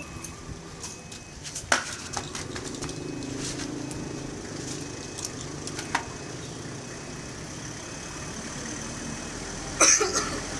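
Steady background hum of road traffic with a few faint clicks, and a short loud burst near the end.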